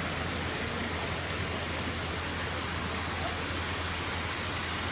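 Steady rush of a heavy downpour and muddy flash-flood water pouring across the ground, an even hiss with a low rumble underneath.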